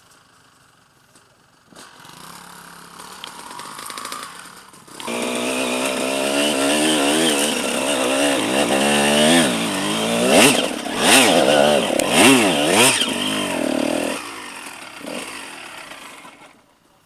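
Enduro motorcycle engine coming closer and revving hard, its pitch rising and falling again and again, loudest past the middle, then fading away.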